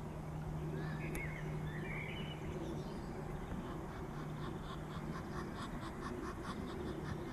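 Birds by a pond: a few short chirping calls about a second in, then a fast, even run of short calls or clicks, about four or five a second, over a steady low hum.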